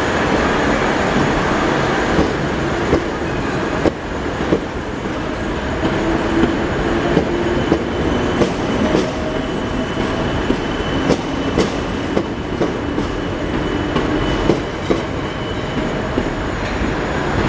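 South Western Railway third-rail electric multiple unit pulling out of a platform: a steady rolling rumble with sharp wheel clicks over rail joints at an uneven pace.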